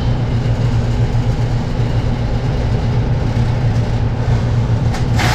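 Steady low machine hum, with a short rattle near the end.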